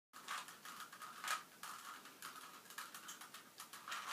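Rubik's Cube being twisted by hand: faint, irregular plastic clicking as its layers turn, about two turns a second, the sharpest one about a second in.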